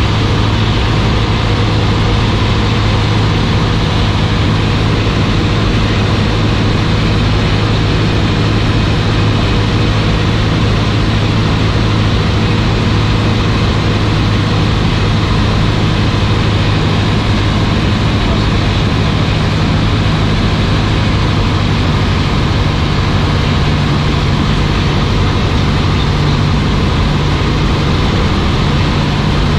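Cessna 152's four-cylinder Lycoming engine and propeller droning steadily, heard from inside the cabin on approach to land. Its note shifts slightly a few seconds in and again near the end.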